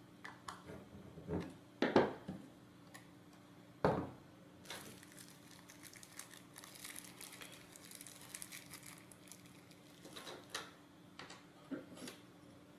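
Small hardware being handled during assembly: a few sharp clicks and knocks of a screwdriver, bolts and brass spacers against the robot's circuit-board chassis, the loudest about two and four seconds in. In the middle comes a stretch of faint crinkling and rustling as the hands pick through the small parts.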